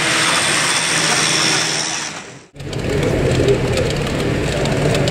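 Model trains running on a layout: a steady whirring hiss of small electric motors and wheels on rail. The sound cuts out briefly about halfway, then comes back lower and rumbling, with light ticks of wheels on the track.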